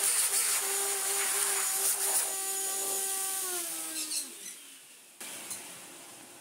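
Small electric power-tool motor running at a steady pitch with a hiss, then switched off about three and a half seconds in, its pitch falling as it winds down. A couple of light clicks follow near the end.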